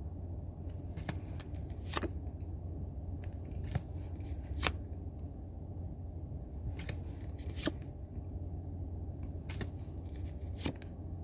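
Pokémon trading cards being handled and flipped through one at a time, with about eight short, sharp card snaps at irregular intervals over a steady low hum.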